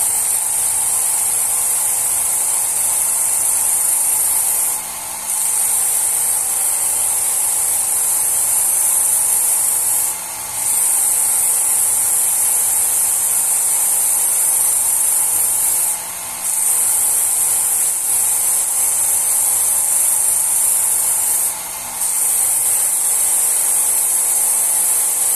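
Work Sharp belt knife sharpener running at its lowest speed, its fine abrasive belt grinding a steel knife edge in a steady hiss over the motor's hum. The hiss breaks off briefly about every five and a half seconds, four times, as the blade comes off the belt between slow strokes.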